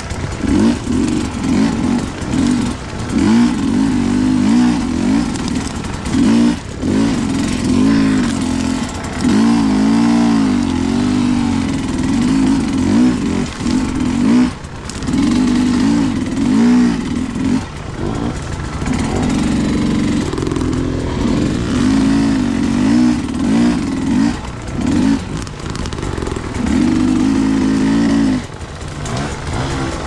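Dirt bike engine running and revving up and down again and again with the throttle, with a few short drops where the throttle closes.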